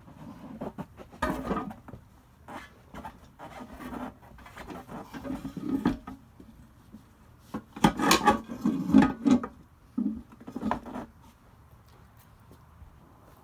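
Irregular clunks, knocks and scraping as a tire and a bead breaker are handled and set in place by hand, with the busiest, loudest run of clatter about eight seconds in.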